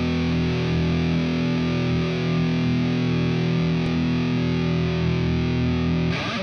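Intro music: a single distorted electric-guitar chord held and ringing steadily, cutting off at the end.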